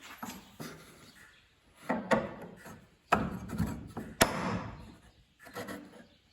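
Hand-built wooden manual square baler being worked: wood rubbing and scraping in a few irregular strokes, with a sharp wooden knock about four seconds in.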